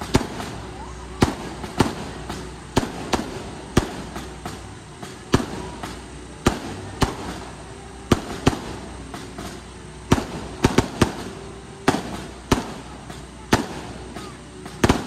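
Aerial fireworks bursting overhead: sharp bangs at irregular intervals, roughly one or two a second, with quicker clusters of cracks about ten seconds in and again near the end.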